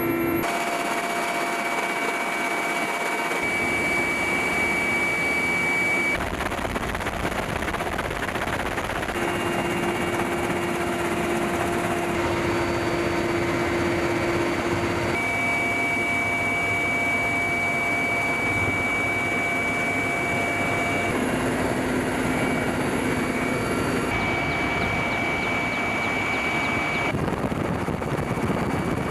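Military helicopters' turbine engines and rotors running, a dense, steady mechanical noise with a high, steady whine. The whine's pitch jumps every few seconds where short clips are cut together.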